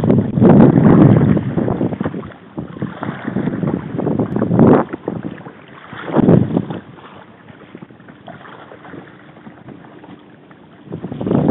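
Choppy sea water washing and slapping against a kayak's bow, with wind buffeting the microphone. It comes in loud rushes for the first couple of seconds and again twice in the middle, then drops lower near the end.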